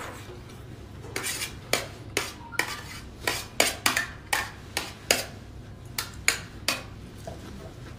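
Metal spoon clinking and scraping against a gold-coloured metal pot as it scoops through broth. A quick, uneven run of sharp clinks starts about a second in and stops about a second before the end.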